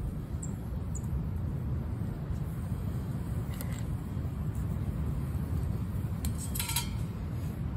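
Steady wind rumble on the microphone, with a few light clicks and a brief ringing tap near the end as small sticks of wood are dropped into a lit stainless steel wood-burning fire pit.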